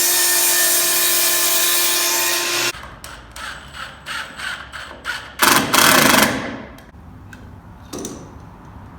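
Power saw cutting a wooden joist board, running steadily for about two and a half seconds before cutting off. A run of short rhythmic scraping strokes, about three a second, follows, then a second brief burst of the saw a little past the middle that dies away.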